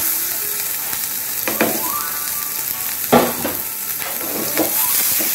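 Diced onions sizzling as they hit hot oil in a frying pan, a steady hiss. A few short knocks sound, the loudest about three seconds in.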